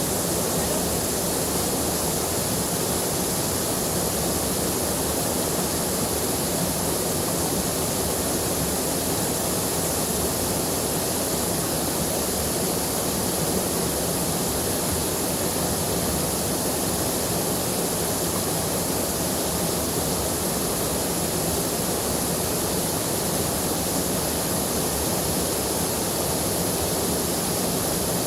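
River in flood, its fast, swollen water rushing steadily and evenly.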